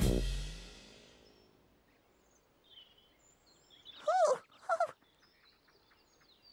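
The tail of a musical sound effect fading away over the first second or so. About four seconds in, two short rising-and-falling vocal sounds in a high, childlike voice.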